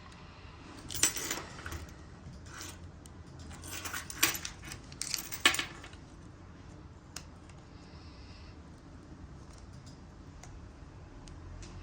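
Clicks and rattles from a Porsche Cayenne remote key's casing being worked apart by hand, its latch tabs being pushed to release the shell halves. The sharpest snaps come about one, four and five and a half seconds in.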